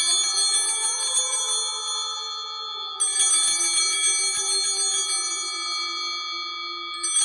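Bell-like chiming tones, many pitches ringing together and fading, struck afresh about three seconds in and again near the end.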